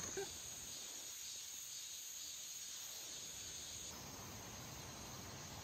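Insects chirping in a faint, steady high-pitched drone.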